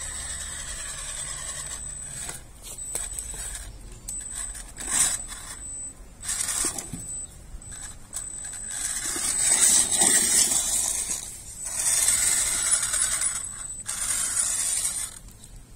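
3D-printed RC rock crawler with a brushless motor and 3D-printed gearbox driving in short bursts over wire mesh and upturned terracotta pots, its drivetrain whining while the tyres and chassis clink and scrape against the mesh.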